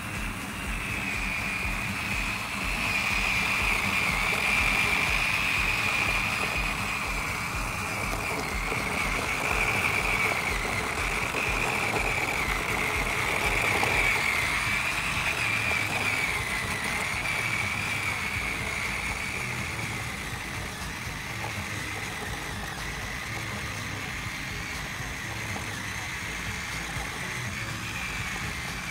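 Small motor of a miniature power tiller running under load as it hauls a trailer of stones, with a steady high whine that wavers slightly in pitch over a low rumble.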